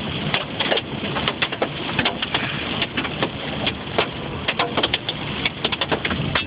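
Hailstones hitting a car's roof and windshield, heard from inside the cabin: a dense, irregular clatter of hard hits over a steady hiss.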